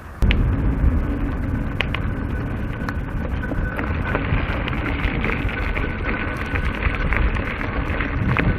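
Wind and trail rumble on a mountain bike's action camera microphone while riding, with rattling clicks from the bike over rough ground. The rumble comes in suddenly about a quarter second in, and a thin steady whine runs through the middle.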